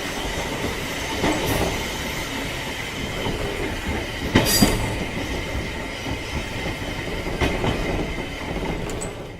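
Train sound effect: a train running on rails with a steady rumble and a faint steady squeal. Wheels knock over rail joints now and then, loudest as a quick pair about halfway through.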